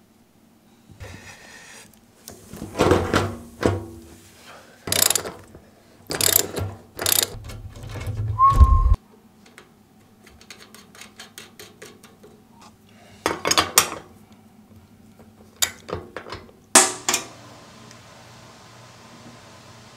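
Steel go-kart parts and a hand wrench clinking and clattering as a front wheel is fitted on its spindle and the nut is turned, with a run of quick light clicks in the middle. Near the end the clatter stops and only faint room hiss remains.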